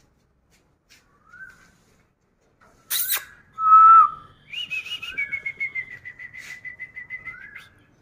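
High whistled calls: a short rising whistle repeating every few seconds, a sharp crack about three seconds in, a loud brief steady whistle just after, then a fast trill of notes sliding slightly down in pitch for about three seconds.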